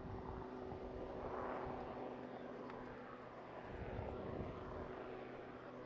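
MQ-9 Reaper's turboprop engine and pusher propeller heard faintly in flight: a steady drone over a haze of outdoor noise that swells slightly a couple of times.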